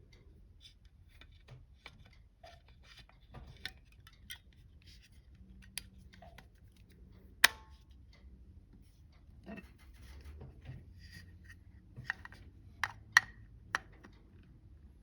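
Small plastic clicks, taps and rubbing from the casing and battery of a wireless motion sensor being handled during a battery change. The sharpest click comes about halfway through, and a quick run of four clicks comes near the end.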